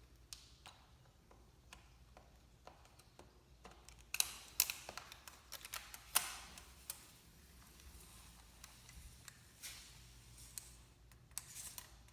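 Scattered light clicks and taps, such as small objects being handled and set down, with a few sharper ones about four and six seconds in and again near the end.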